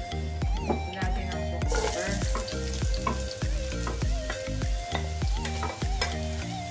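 Julienned carrot and cucumber strips sizzling in hot oil in a wok as they are stir-fried with a spatula, over background music with a steady beat.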